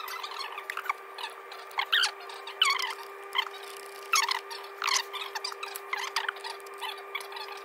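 A string of short, sharp squeaks, irregular at about one to two a second, over a steady hum.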